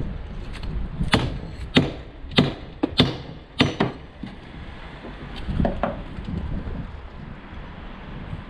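Hammer blows on a building stone as it is cut and dressed by hand: a quick run of about seven sharp strikes between one and four seconds in, then a couple of softer knocks.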